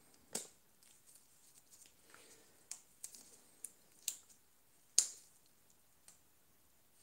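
A series of light, irregular clicks and taps, the loudest about half a second in and again about five seconds in.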